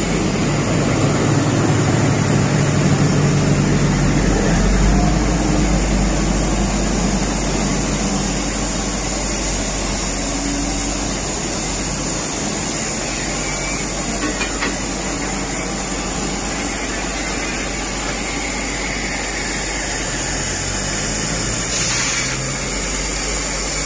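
Two coupled steam locomotives moving slowly past, with a steady hiss of steam over the rumble of the running gear.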